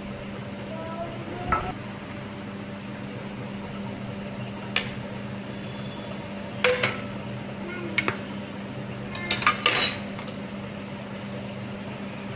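Metal kitchen utensils clinking and knocking against a pot or bowl, a handful of separate strikes with the busiest cluster about nine to ten seconds in, over a steady low hum.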